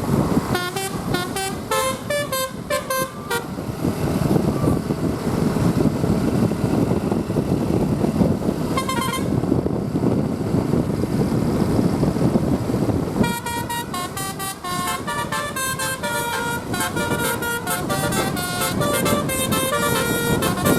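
A bus's telolet Basuri musical horn, sounding from trumpets mounted on its roof, plays a quick tune of short stepped notes for about three seconds. A brief toot follows about nine seconds in, then a longer, busier tune from about two-thirds of the way in to the end, over a steady low rumble.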